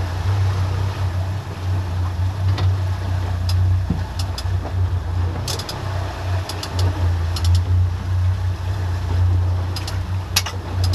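Boat engines running steadily underway, a strong low hum, with water rushing past the hull and wind noise. Short high ticks come now and then.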